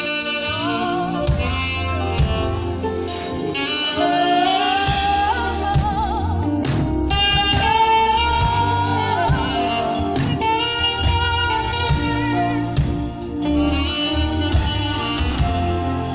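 Saxophone playing a slow worship melody with vibrato and sliding notes, over a backing track with bass and drums.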